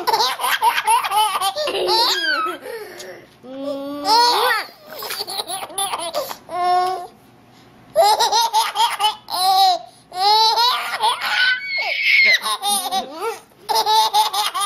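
A baby laughing hard in repeated high-pitched bursts, with short pauses for breath between runs of laughter.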